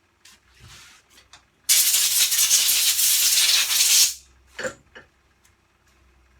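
A loud, steady hiss lasting about two and a half seconds that starts and stops abruptly, with small clicks before it and a short knock just after.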